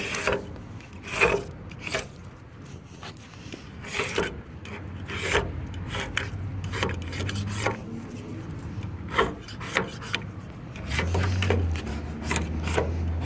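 Razor blade scraping and peeling base-coat paint off a 1972 Mercury Cougar's body panel, in irregular short scraping strokes.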